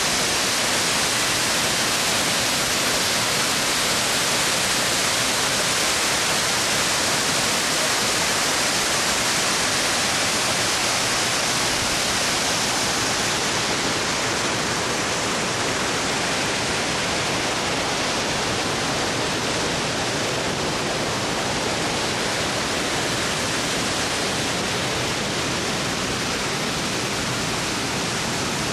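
Waterfall rushing: a loud, steady, even wash of falling water over rock. The highest hiss softens slightly about halfway through.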